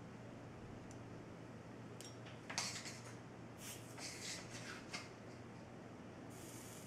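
Light tabletop handling sounds of solar cells and a pen on a paper template: a small click, then a cluster of short scratchy scrapes and rattles about halfway through.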